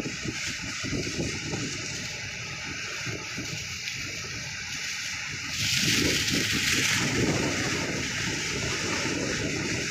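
Typhoon-force wind rushing and buffeting the microphone over rough, splashing harbour water. About six seconds in there is a louder rush lasting about a second.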